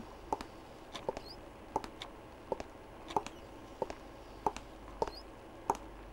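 Slow footsteps of hard shoes on a stone floor, a step roughly every two-thirds of a second, some landing as quick double clicks. There are a couple of faint high squeaks between them.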